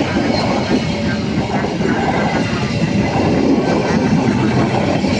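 A train passing the level crossing close by, a loud, steady rumble of wheels on the rails.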